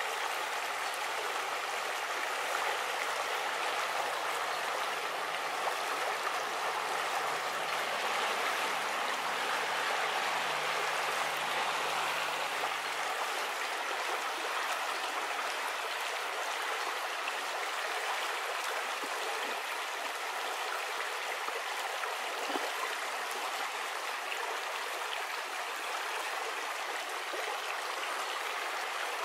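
Shallow river water running steadily over stones in a riffle, an even rushing sound.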